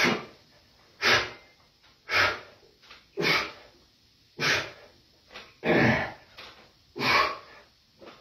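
A man breathing hard and rhythmically while pressing a barbell through bench-press repetitions: one short, noisy breath about every second, in time with the reps.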